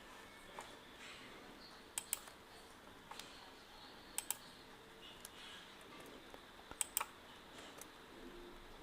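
Faint scattered computer clicks from a mouse and keyboard, about a dozen over several seconds, some in quick pairs like double-clicks, over quiet room hiss.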